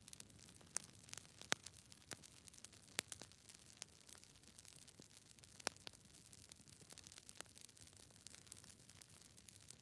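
Near silence, broken by faint, irregular clicks and crackles over a low hiss.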